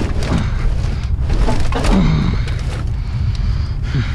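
Stainless steel kitchen equipment being handled and pulled at in a dumpster: scattered metal knocks and scrapes over a steady low rumble.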